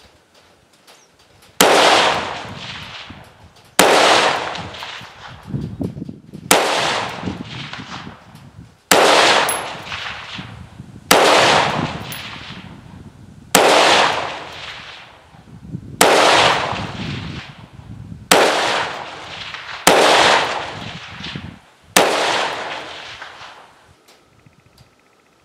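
A scoped AR-style rifle fired ten times in slow, steady succession, about one shot every two seconds, each sharp report trailing off in a long fading echo.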